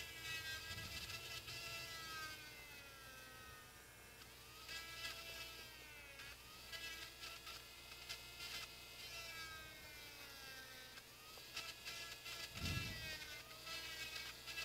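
Small electric drill whirring with a high, buzzing pitch that dips and recovers several times, with scattered light clicks.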